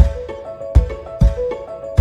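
Upbeat intro music: a steady kick-drum beat with bright mallet-like melody notes on top.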